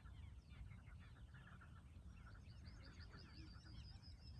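Faint birdsong from several small birds chirping, with a quick trill of repeated high notes starting about halfway through, over a low background rumble.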